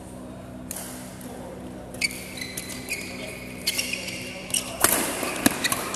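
Badminton rally in a large indoor hall: from about two seconds in, a quick run of sharp racket hits on the shuttlecock and footwork on the court, with the loudest burst of hits about five seconds in. A steady low hum underlies it.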